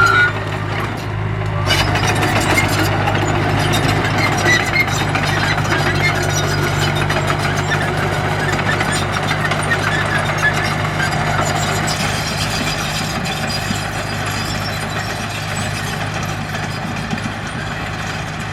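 Diesel engine of heavy earthmoving machinery running steadily, with a light clatter over the engine hum; it eases off slightly toward the end.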